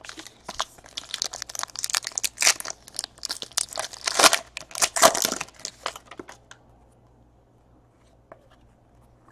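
A trading-card pack's wrapper being torn open and crumpled: a run of crackling crinkles that stops about six and a half seconds in.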